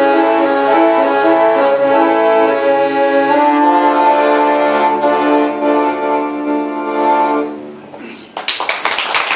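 Piano accordion and cello play the last bars of a slow folk song, ending on a long held chord that dies away about eight seconds in. Audience applause breaks out just after.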